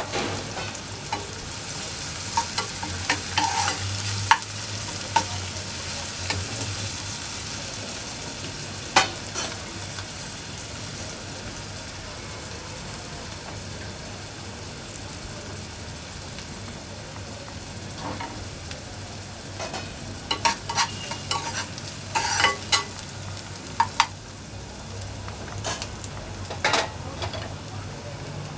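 Chopped onion and green chillies sizzling in hot oil in a pan, with a spoon scraping and knocking against the pan from time to time as they are stirred, most of all in a few short spells.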